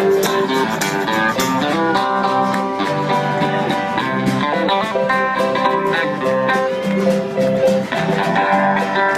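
Live country band playing an instrumental break between sung lines: guitars carry a melody over a steady strummed rhythm, without singing.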